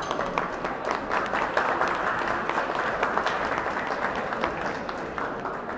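Audience applauding, a dense patter of many hands clapping that swells about a second and a half in and tapers off near the end.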